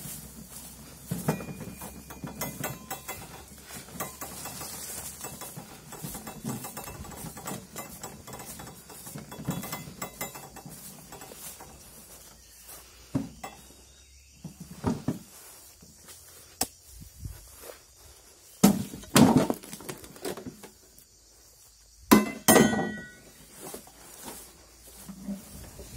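Steel wheelbarrow being pushed over rough, grassy ground, its tray and load of loose oil palm fruitlets rattling and clinking. A few louder metallic bangs come about three quarters of the way through.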